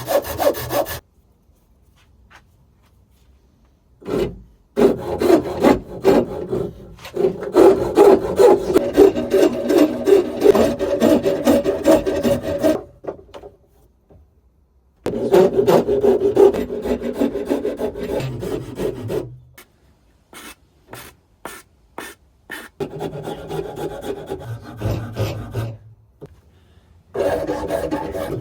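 A hand rasp scraping along a hazel walking stick, shaping the wood. It comes in runs of quick back-and-forth strokes lasting several seconds, broken by short pauses.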